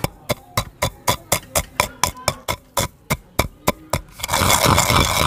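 Wooden pestle pounding whole fenugreek seeds in a stone mortar: regular thuds about four a second, crushing the seeds coarse. About four seconds in the pounding stops and a steady rushing noise takes over.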